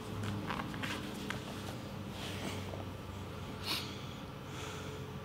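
Grapplers breathing hard, with short nasal snorts and exhales, while bodies in rash guards shift against each other, over a low steady hum.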